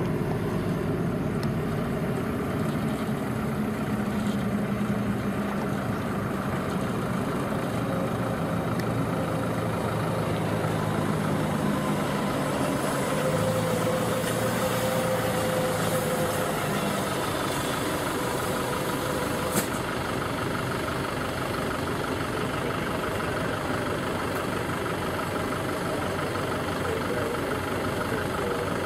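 Heavy truck diesel engines running steadily at low speed, with one brief sharp click about two-thirds of the way through.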